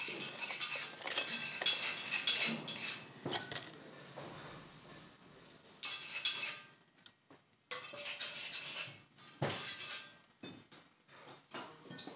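Irregular metallic clinks, taps and scrapes of a screwdriver and small steel parts against a rolling ring drive's housing and bearings as it is worked on by hand, with a quieter gap about seven seconds in.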